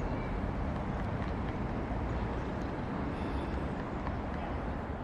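Steady, low outdoor background rumble with no clear bird call or drumming, fading out near the end.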